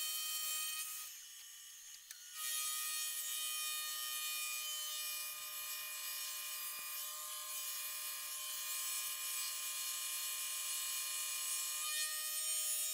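Milling machine face mill taking a light facing cut across a metal workpiece: a steady hissing cut with a high ringing whine. It drops off about a second in and takes up again around two and a half seconds in. The cut is chattering, which left a poor surface finish.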